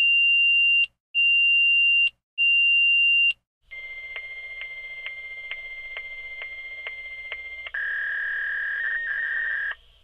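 Fax machine call and handshake tones. Three loud, high, steady beeps just under a second each come first, then a steady answer tone with soft clicks about twice a second for about four seconds. A lower, louder signalling tone follows for about two seconds and cuts off near the end.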